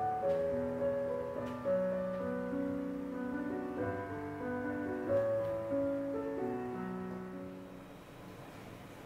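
A piano being played: a slow tune of held notes over lower notes, fading away near the end.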